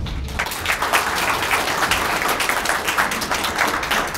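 Audience applauding: many hands clapping together, swelling within the first half second and then keeping on steadily.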